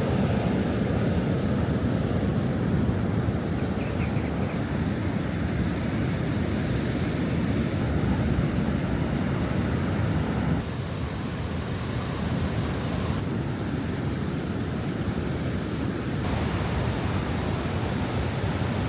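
Sea surf washing and breaking on the shore, a steady rushing wash with wind on the microphone. The sound shifts abruptly in level and tone about ten and a half seconds in, and twice more after that.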